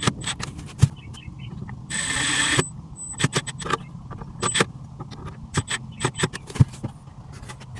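Clicks and knocks of hard plastic dash parts being handled and fitted, with a brief whirring burst from a handheld power tool about two seconds in and two short high whines later.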